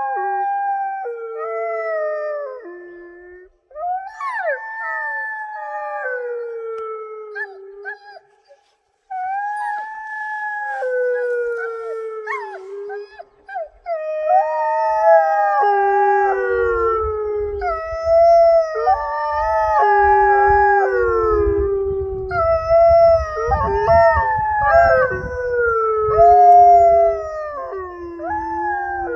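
Wolf dogs howling: long drawn-out howls that slide and step down in pitch, with short breaks between them. From about halfway two or three voices overlap in a chorus, and a low rumble runs beneath.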